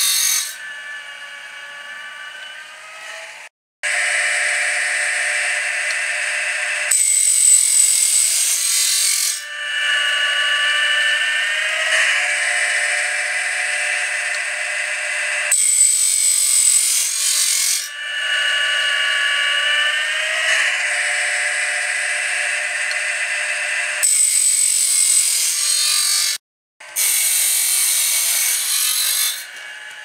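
Woodland Mills sawmill blade sharpener grinding a band blade: the grinding wheel's electric motor whines as the wheel grinds the teeth, and the sound changes in sections every few seconds as the blade is advanced tooth by tooth. There are two brief silences, and it is quieter near the end.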